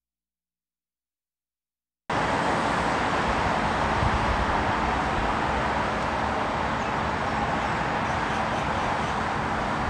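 About two seconds of silence, then the steady noise of traffic on a multi-lane highway cuts in suddenly and holds level.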